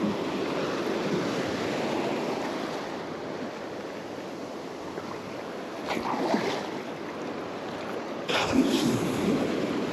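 Small surf waves washing around in shallow water close to the microphone, with some wind on the microphone. The water surges louder twice, about six seconds in and again just past eight seconds.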